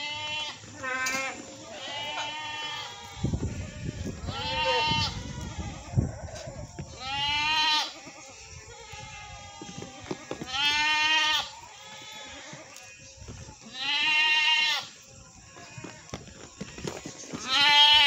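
Goat bleating repeatedly: about seven loud bleats, each up to about a second long and a few seconds apart, every call rising then falling in pitch. A low rumbling noise sits under the calls from about three to six seconds in.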